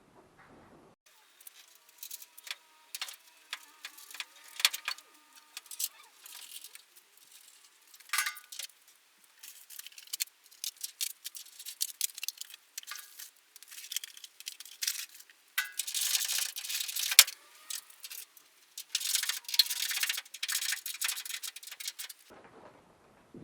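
Light metallic clinking, clicking and rattling of hand tools and bolts while a classic Mini's door is hung back on its hinges. There are scraping, rattling stretches about two thirds of the way through and again near the end.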